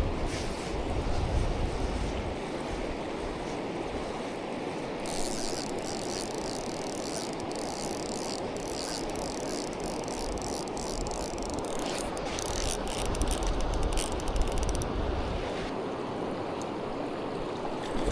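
Steady rush of river water, with a fishing reel clicking rapidly for about ten seconds in the middle as line is reeled in. Wind rumbles on the microphone near the start and end.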